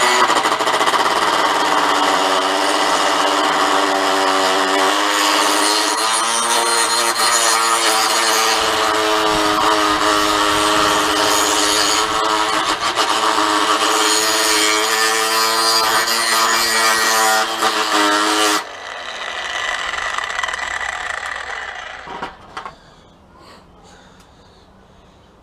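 A Stanley FatMax 18 V cordless angle grinder with a 100 mm grinding wheel grinding steel: a loud, high motor whine with a coarse grinding hiss, its pitch shifting as the load changes. After about eighteen seconds it is switched off, and the wheel winds down over a few seconds.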